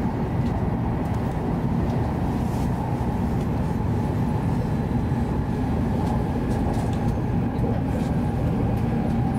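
Cabin noise inside a Hokuriku Shinkansen E7/W7-series train running at speed: a steady low rumble of wheels on rail and running gear, with a faint high steady whine above it.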